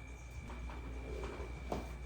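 A person lying down face down on a chiropractic treatment table: faint knocks and shuffling against the table, over a steady faint high whine.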